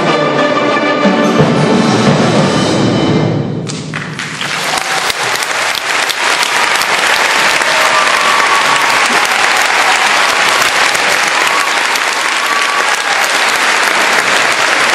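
A middle school concert band holds its final chord, with brass prominent, and cuts off sharply about four seconds in. Audience applause follows and continues steadily.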